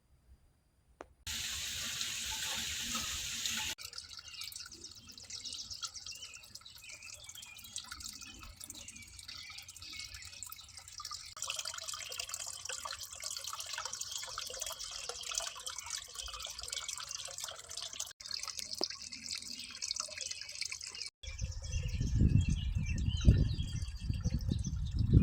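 Running water trickling and dripping, heard in several short edited cuts. From about 21 seconds in, a loud low rumble joins it.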